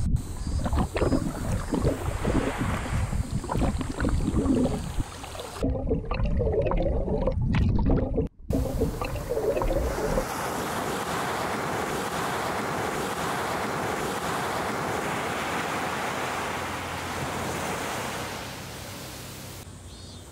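Sea water at a shore: rumbling, sloshing water with a brief cut partway through, then a steady wash of surf from about halfway that drops in level near the end.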